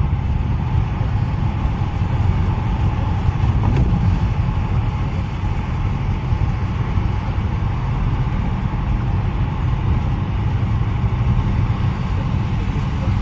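Steady road and engine noise heard from inside a car cruising on a highway: a continuous low rumble of tyres and engine, with no sudden events.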